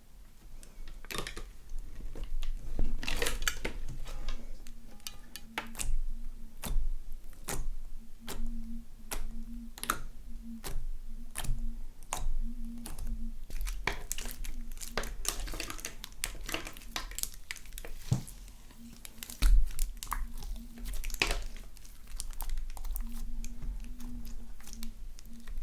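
Slime being squeezed and kneaded by hand, giving many irregular sharp crackles, pops and squelches.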